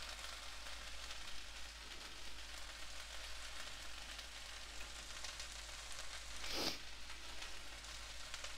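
Food sizzling steadily in a hot pan on the stove, with a brief louder swish about two-thirds of the way through.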